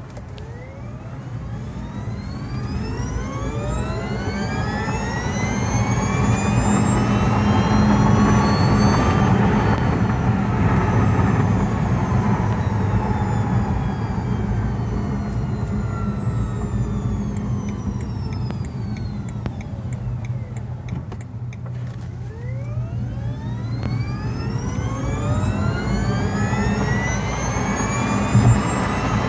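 Artificial engine sound added to a BMW i3 electric car while it accelerates: several tones together that rise in pitch for about nine seconds, sink slowly, then climb again near the end, over a steady low hum.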